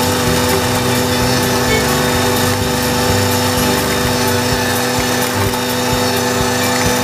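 Valtra A93 tractor's diesel engine running under load, driving an Agrimaster KP2600 flail mower through the PTO as it cuts tall grass. A steady drone with a constant hiss of the spinning flails and cut grass.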